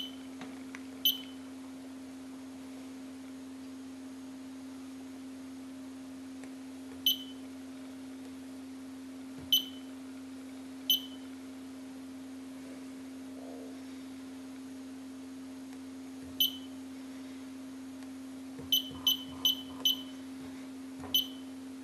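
Electronic oven control panel beeping as its touch keys are pressed to set the temperature and a four-hour cooking time: about eleven short, high beeps, spaced out at first, then four in quick succession near the end. A steady low hum runs underneath.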